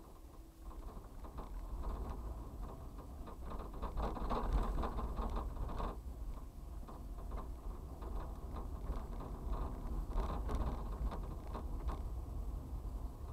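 Engine and road noise of a moving vehicle heard from inside the cab, a steady low rumble with light rattling. It grows louder over the first few seconds as the vehicle pulls away from a stop and drives on.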